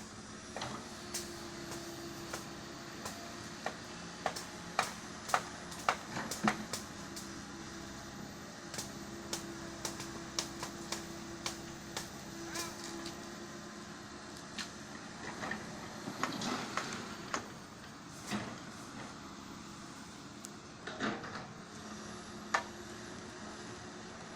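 Komatsu excavator engine running steadily, with many sharp cracks and snaps on top of it, and a longer crunching noise about 16 seconds in and again near 21 seconds.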